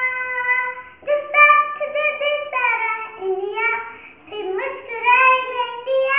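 A young girl singing solo, holding long notes that glide between pitches, with a brief break for breath about a second in.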